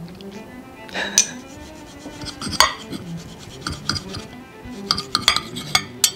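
Metal knife and fork scraping and clinking on a plate while sawing through a piece of cooked beef: irregular sharp strokes, loudest about a second in and again past two and a half seconds, with a quicker run of scrapes near the end. Quiet background music underneath.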